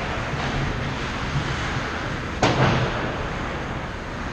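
Ice hockey play on a rink: skates scraping over the ice, with one sharp crack of an impact about two and a half seconds in.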